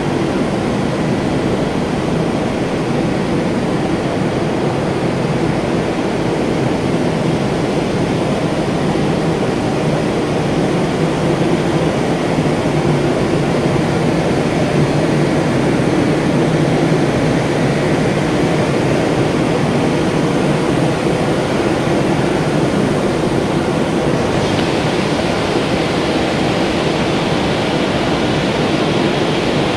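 Loud, steady drone of large 450 HP electric water-supply pumps running, a constant hum under an even rushing noise. The higher hiss grows brighter about 24 seconds in.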